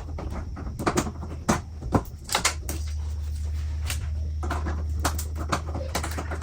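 Irregular sharp clicks and knocks of truck grille parts and trim pieces being handled and fitted, over a steady low hum.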